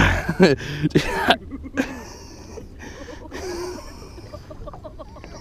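A man's short wordless vocal sounds, coughing-like grunts and exclamations, loudest in the first second and a half, then fainter voice sounds.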